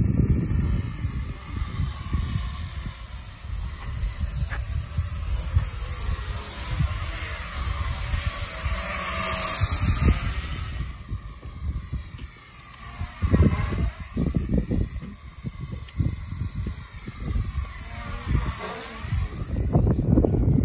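Small quadcopter drone's propellers whirring as it flies low past, swelling to its loudest about halfway through, with gusts of wind buffeting the microphone.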